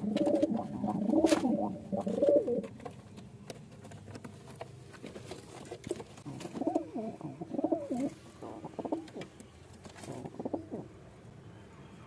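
Domestic pigeons cooing in a loft: a loud bout of low, rolling coos at the start, then quieter bouts of coos in the second half.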